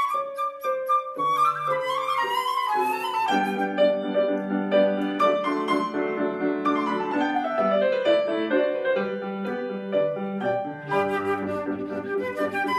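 Flute and grand piano playing a classical duet. Partway through, the flute rests while the piano carries on alone with descending runs. The flute comes back in near the end.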